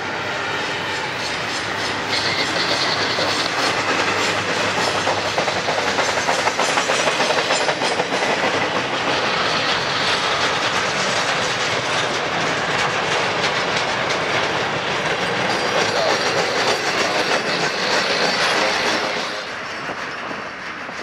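Double-stack intermodal container train's well cars rolling past, wheels clicking over the rail joints with a steady rumble. The sound falls away near the end as the last car passes and moves off.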